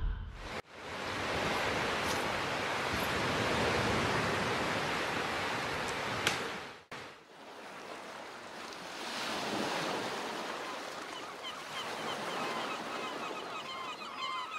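Surf on a sandy beach: small waves breaking and washing up the shore in a steady rush. It cuts off abruptly a little before halfway and resumes as a second, somewhat quieter stretch of surf.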